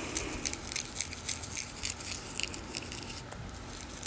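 Retted flax straw being bent and broken by hand: a run of small, irregular crackling clicks, several a second, as the brittle woody shives snap into bits while the flexible fiber holds.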